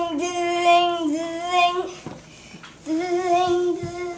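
A young child singing long held notes on nearly one pitch, in two phrases with a short break about two seconds in.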